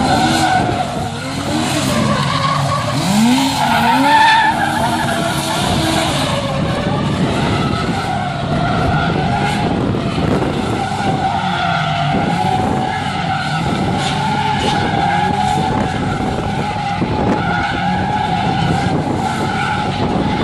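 A stunt car's tyres squealing in a sustained skid while its engine revs. The engine pitch rises and falls over the first few seconds, then a steady tyre screech carries on.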